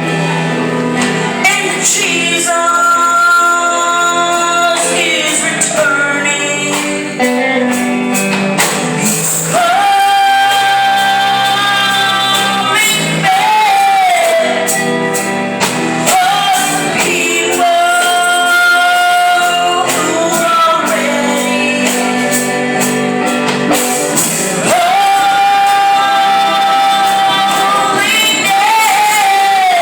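Live gospel song with instrumental backing: an instrumental opening, then a woman's voice singing long held notes from about a third of the way in.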